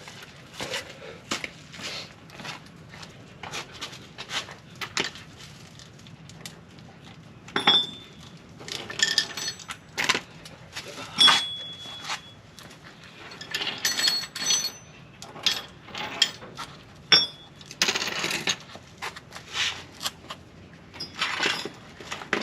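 Steel hand tools and metal parts clinking and knocking in irregular clicks, several with a short metallic ring.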